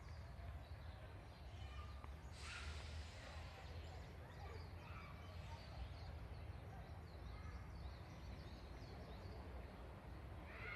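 Faint outdoor ambience: a steady low rumble with small scattered bird chirps, and a brief hissing rush about two seconds in.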